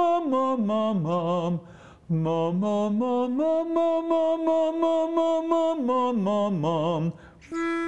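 Man singing quick repeated 'ma ma ma' syllables as a vocal drill for carrying the voice through the break (passaggio). He holds the E above middle C, steps down about an octave, breaks off briefly, climbs back up, holds again and steps down once more. Near the end a short steady reference note on the E sounds from a pitch pipe.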